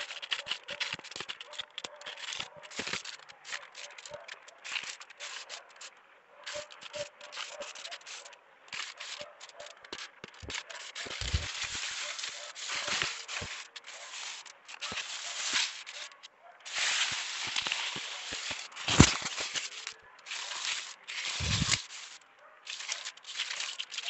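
Hands rummaging through dry mulch, pine needles and soil around sweet potato vines: irregular crackling rustles and scrapes, with a few dull thumps and one sharp knock about three-quarters of the way through.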